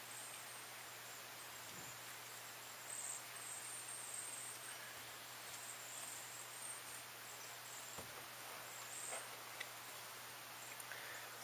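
Faint outdoor background of high-pitched insects chirring on and off, with a couple of faint taps from hands working the resin-wet patch.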